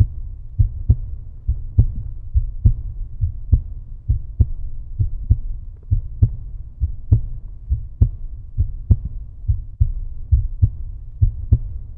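Outro music, here a steady low thudding bass and kick-drum beat, a few beats a second.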